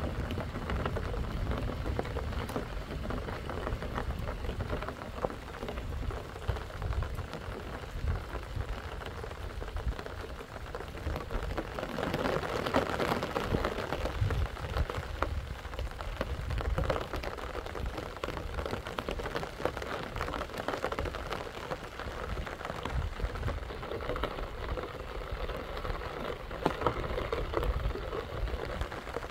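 Steady rain falling on rocky ground, a dense patter of drops over a low rumble.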